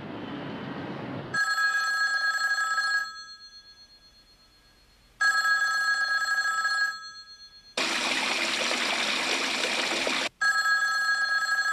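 Landline telephone bell ringing three times, a few seconds apart, as a call rings through unanswered. Between the second and third rings there is a loud rushing hiss.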